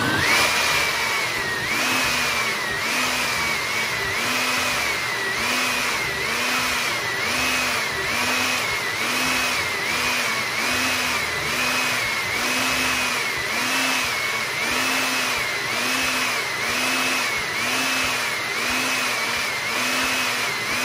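Countertop blender running at full speed on a thick load of frozen fruit, banana and milk, its motor whine rising and dipping about once a second as the contents churn.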